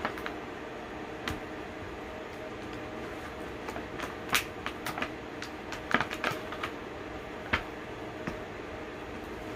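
Scattered light clicks and taps of bath bombs being handled and put back into their container, bunched in the middle with a sharper knock near the end, over a steady low hum.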